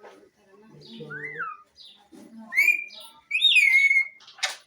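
Pet parrot whistling and calling: a short rise-and-fall whistle, then two loud whistles, the second sliding down in pitch, and a quick run of harsh squawks near the end.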